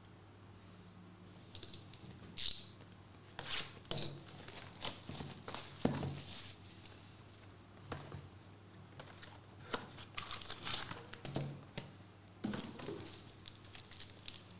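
Plastic shrink wrap and packaging being torn and crinkled off a sealed trading-card hobby box, then the foil-wrapped pack inside handled. It comes as irregular crackling and ripping sounds, starting about a second and a half in.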